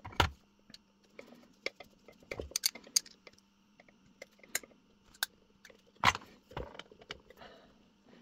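Small clicks, taps and scrapes of a screwdriver and fingers handling a ceramic lamp holder with metal terminals while its wires are fitted, irregular, with the loudest knocks just after the start and about six seconds in.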